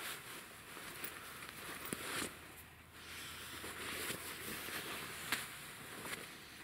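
Rustling of a hunting jacket's fabric as it is pulled on and adjusted, with a few light clicks and louder swells of rustle as the arms and collar move.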